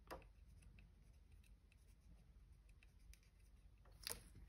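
Faint scratching and small clicks of a marker pen being drawn on the red wire insulation, with a sharper click about four seconds in.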